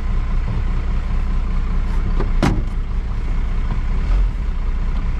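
A 12-valve Cummins 5.9 L inline-six turbo diesel running steadily, heard from inside the truck's cab. A brief sharp sound cuts in about halfway through.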